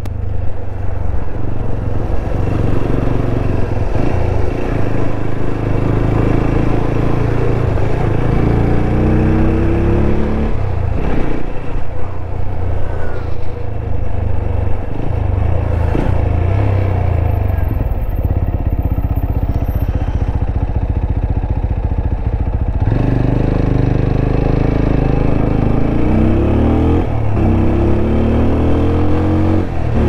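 Motorcycle engine running while riding, the revs rising and falling a few times as it pulls away and shifts. By the owner's account its tappets are loose.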